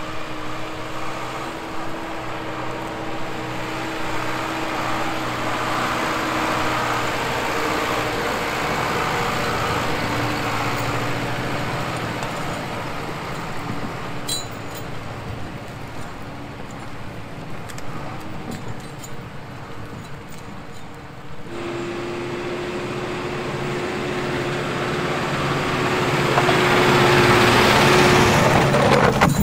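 Zetor Proxima 90 forestry tractor's diesel engine running steadily as it drags logs. About two-thirds through, the engine note steps up to a slightly higher pitch and grows louder toward the end as the tractor comes closer.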